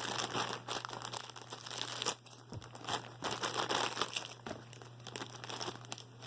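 Small black blind bag crinkling and rustling as it is torn open and handled by hand.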